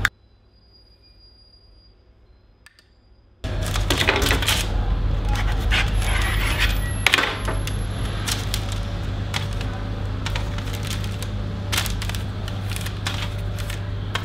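Close-up handling sounds of hands working pastry dough on baking paper: a dense run of light clicks, taps and crinkles over a low steady hum. They start about three and a half seconds in, after a quiet stretch.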